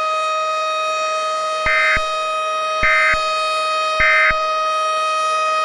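Three short bursts of Emergency Alert System end-of-message data tones, about a second apart, each opening and closing with a click. They ring out over a steady electronic tone that holds throughout.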